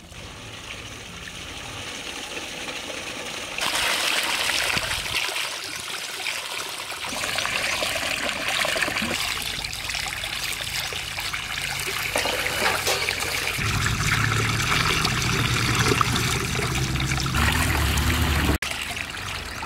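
Water pouring from a pipe into a large steel pot of mangoes and splashing as the fruit is washed by hand. The water grows louder about three and a half seconds in.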